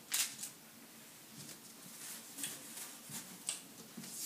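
Faint handling sounds: a chocolate-dipped doughnut set down on a paper-lined baking tray, a brief rustle at the start, then a few soft scattered taps.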